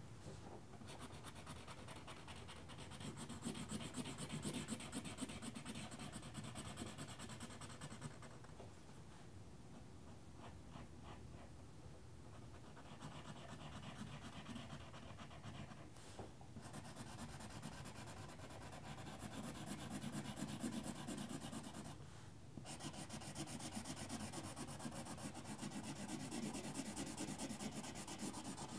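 Faint felt-tip marker scratching on paper, colouring in with quick repeated strokes, with a quieter pause partway through.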